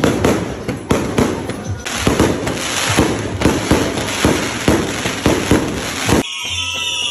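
Fireworks going off in a rapid volley: sharp bangs two or three a second over continuous crackling. They cut off abruptly about six seconds in, and background music follows.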